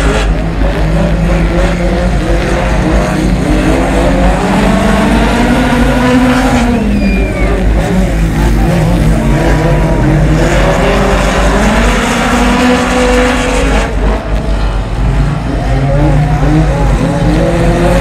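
Honda Civic EG hatchback race car engines revving, the pitch climbing and falling again every few seconds as the cars lap the track.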